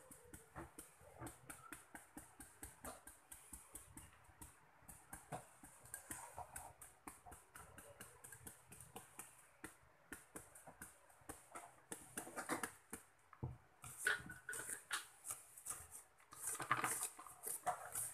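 Kitchen knife shaving unripe jackfruit into small slivers over a plastic basin: quick, even scraping cuts at about four strokes a second, with a few louder strokes near the end.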